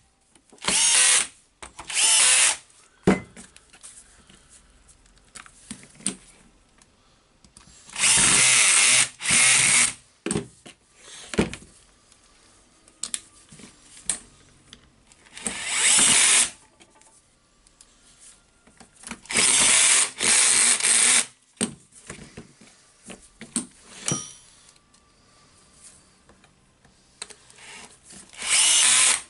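Reassembled cordless drill's motor run up in short bursts of a second or two, about seven times with pauses between: a test run after its armature was cleaned and carbon brushes refitted.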